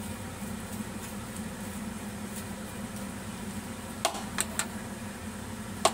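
Metal spoon stirring chopped fish and onion in a ceramic bowl, with a few sharp clinks of the spoon against the bowl about four seconds in and once more near the end, over a steady low hum.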